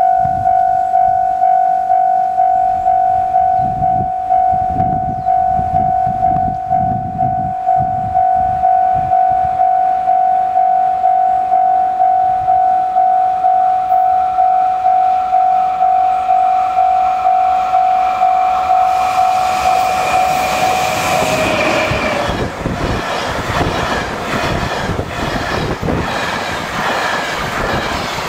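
Level-crossing warning bell ringing in steady repeated strokes, a little more than one a second. About twenty seconds in, the bell is drowned out as an electric-locomotive-hauled container freight train rolls past with loud wheel rumble and rail clatter.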